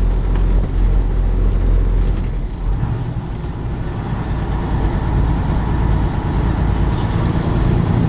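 Semi-truck cab interior while driving: the diesel engine and road noise run steadily, easing briefly about two and a half seconds in and then building again.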